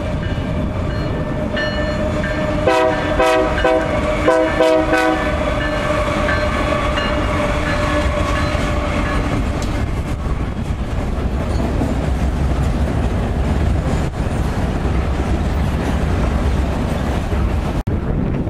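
Diesel freight train running with a steady rumble and wheel clatter. A little under three seconds in, the locomotive's horn sounds a rapid series of short blasts, about three a second, for roughly two and a half seconds.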